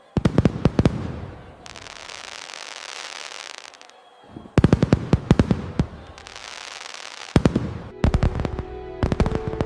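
Fireworks going off: three rounds of rapid sharp bangs, the first two each trailing off into a long crackling, fizzing hiss. Music comes in near the end.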